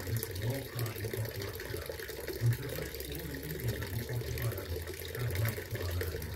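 Small garden water fountain splashing and trickling steadily.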